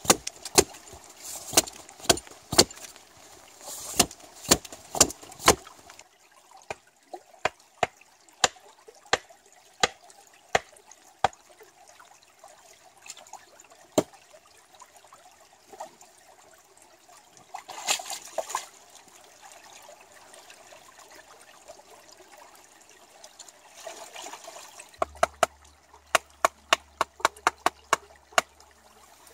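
Hatchet chopping wood: sharp strikes about two a second, thinning out after about six seconds, over the steady trickle of a stream. Near the end, a quick run of sharp clicks as a knife carves a stick.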